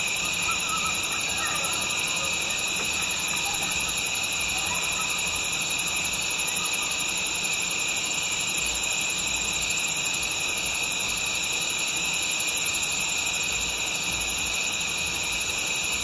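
Steady, high-pitched chorus of field insects chirring without a break. Faint, distant coyote howls and yips waver through it in the first few seconds.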